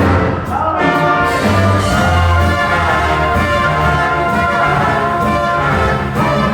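Orchestral music led by brass, with sustained chords and a strong low bass line.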